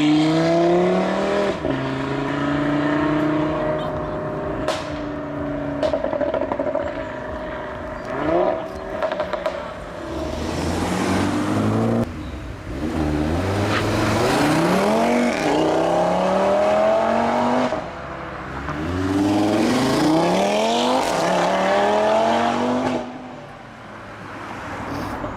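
Audi RS3 8V's turbocharged 2.5-litre inline five-cylinder engine through its exhaust: revs held steady, then several hard accelerations whose pitch climbs and drops back at each upshift. A few sharp pops early on.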